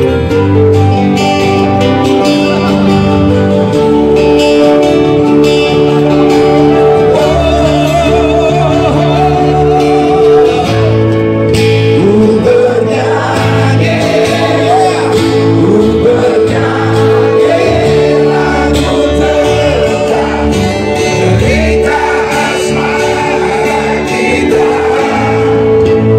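Live acoustic band playing: strummed acoustic guitars over an electric bass, with a man singing from about seven seconds in.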